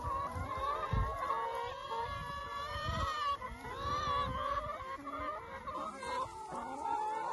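A flock of free-range hens clucking, many long, drawn-out calls overlapping.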